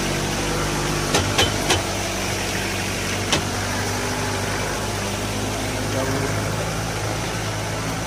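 Steady rush of a waterfall mixed with the chatter of a crowd and a low steady engine hum. Three sharp clicks come close together just after a second in, and one more a little after three seconds.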